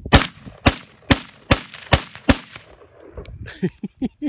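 Russian SKS semi-automatic rifle (7.62×39 mm) fired six times in quick succession, about two shots a second, each crack followed by a short echo.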